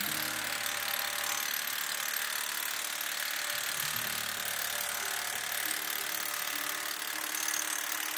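Barge lashing ratchets being cranked on the deck wire, the pawls clicking and the metal rattling as the handles are worked, over a steady high-pitched noise.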